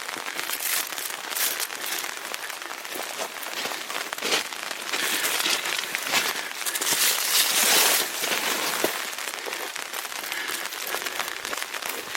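Rain falling on an umbrella held over the microphone, a dense crackle of drops that grows louder for a few seconds around the middle.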